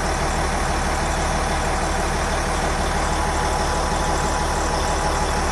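Caterpillar D8R bulldozer's diesel engine running steadily with an even, unchanging drone.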